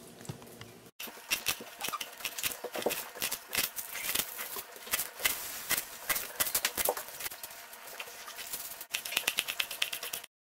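Kitchen knife chopping sorrel leaves and a green chili on a wooden cutting board: quick, irregular taps of the blade on the board, turning faster and more even near the end, then cutting off suddenly.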